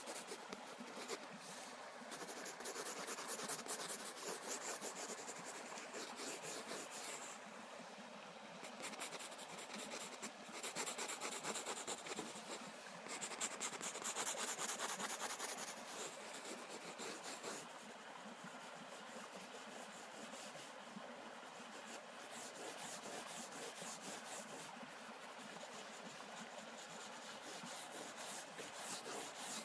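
Pencil scratching and rubbing across a large sheet of paper on a drawing board: long runs of quick, light strokes that go on without a break, with louder spells about 3 s, 11 s and 14 s in.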